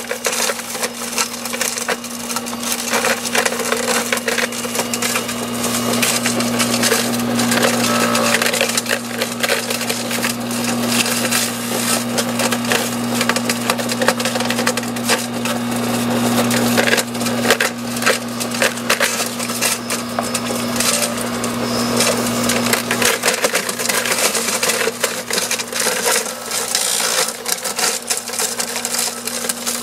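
Kawashima GS2500 electric branch shredder chewing up branches: a dense, continuous crackling and snapping of wood being crushed over the steady hum of its electric motor. The hum fades noticeably about three-quarters of the way through while the crackling carries on.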